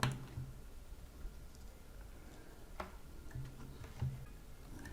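A few faint, sharp clicks, one at the start, one a little before three seconds in and one about four seconds in, over a low hum that comes and goes.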